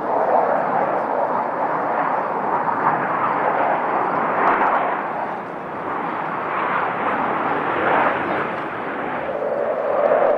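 Jet engine noise from Blue Angels F/A-18 Hornets flying past: a loud rushing roar that swells and eases several times.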